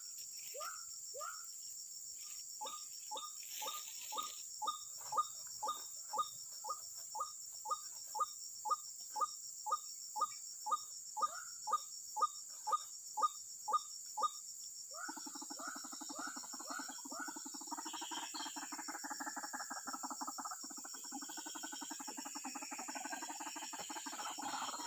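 White-breasted waterhen calling: a run of short rising notes, about two a second, which about fifteen seconds in turns into a denser, continuous chattering call. A steady high insect drone sounds throughout.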